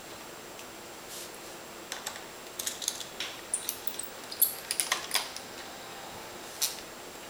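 Light clicks and taps of a small screwdriver and screws against a laptop's plastic case: a cluster of quick clicks through the middle and one more near the end.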